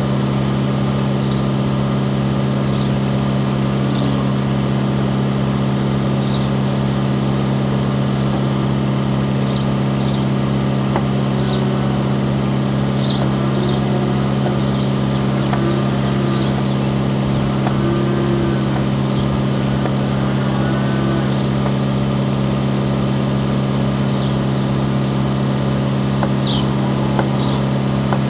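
A steady, loud motor or engine hum, unchanging throughout, with short high chirps repeating every second or two.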